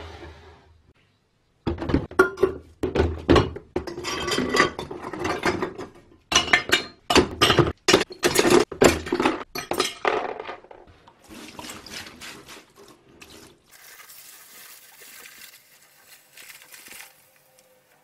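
Rusty metal parts of a Peugeot Frères coffee grinder dropped one after another into a plastic tub, a quick run of loud clanks and knocks for about eight seconds, then a few softer knocks. Near the end comes a quieter, even hiss of liquid being poured in.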